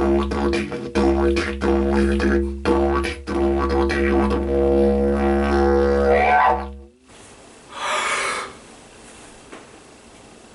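Didgeridoo drone played with rhythmic pulses for about three seconds, then held while its overtones sweep upward. It stops suddenly about seven seconds in, and a short breathy hiss follows about a second later.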